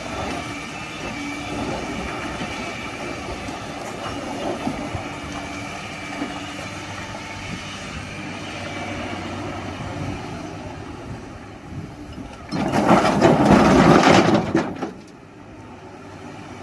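Excavator's diesel engine running steadily with its hydraulics working. About thirteen seconds in comes a loud crashing rumble lasting about two seconds, as boulders are dumped into a tipper truck's steel bed.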